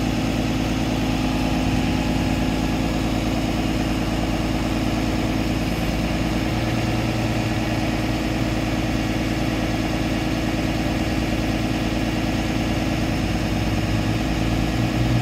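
Bucket truck's engine idling steadily, running to power the aerial boom's hydraulics.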